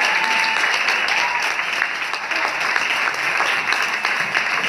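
Audience applauding steadily, with a voice calling out briefly near the start.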